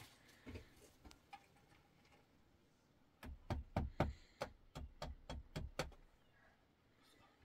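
Hammer driving a nail: a quick run of about a dozen sharp knocks, roughly four a second, lasting about three seconds in the middle.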